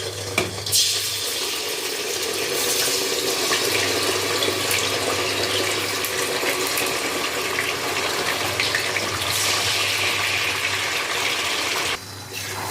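Wet ground raw turmeric paste sizzling in hot ghee and oil in a pan, a steady hiss that starts about a second in.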